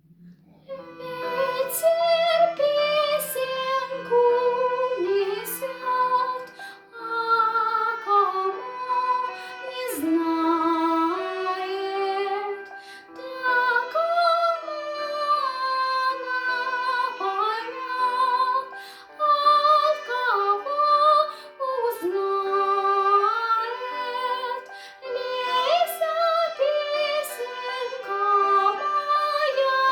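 A young voice singing a melody with vibrato over piano accompaniment.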